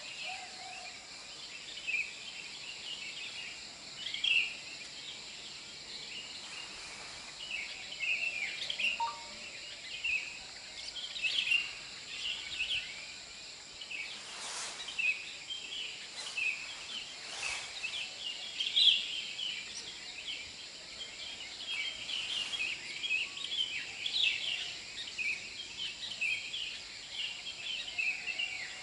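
A dense chorus of short, quick chirps from small animals, several a second, over a steady high-pitched whine. Three faint clicks come about halfway through.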